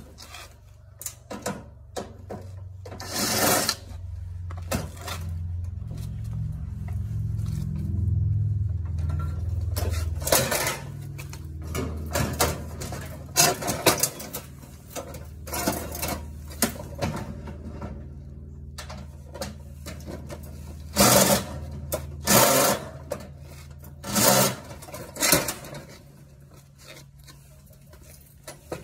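Tools clanking and scraping on the metal parts of a washing machine being taken apart for its motor, in irregular knocks and rasps over a low steady hum that fades out near the end.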